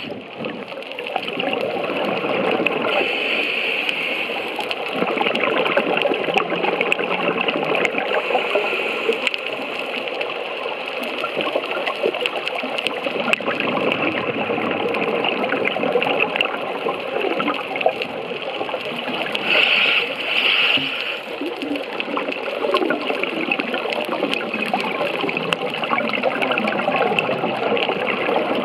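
Muffled underwater noise heard through a camera housing: a scuba diver's exhaled bubbles gurgling and crackling continuously, with two brief louder hisses, a few seconds in and about twenty seconds in.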